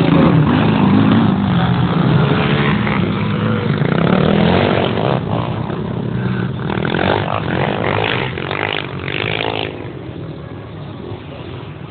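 Quad (ATV) engine revving up and down as it jumps and rides on a sand track, loudest at first and fading after about eight seconds.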